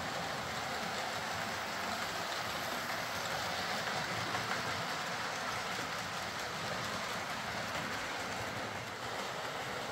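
Hornby OO gauge Class 43 HST model locomotive running on track, a steady whirr of its ringfield motor and wheels rolling on the rails.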